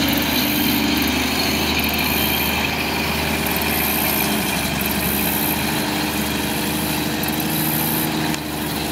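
1944 Volkswagen Schwimmwagen's air-cooled flat-four engine running steadily while the amphibious car is under way in the water. It dips slightly in level near the end.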